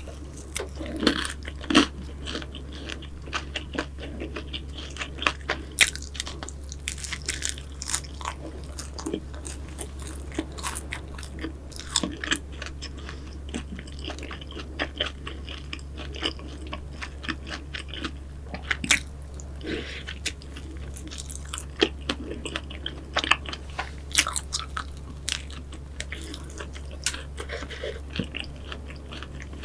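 Close-miked eating of pastries: irregular crunchy bites and chewing, with crisp crackles of pastry breaking, over a steady low hum.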